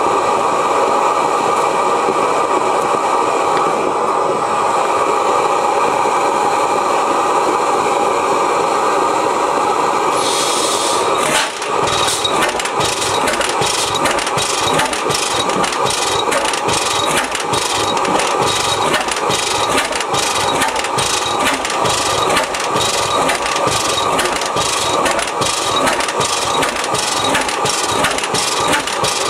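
1905 Reid 15 hp two-cycle hot-tube oilfield engine: at first a steady rush, then a brief hiss about ten seconds in, after which the engine starts and runs with an even, regular beat of strokes.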